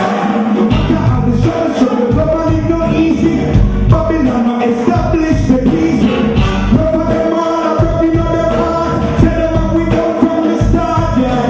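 Live reggae band playing: a male vocalist singing into a microphone over electric guitar and drums.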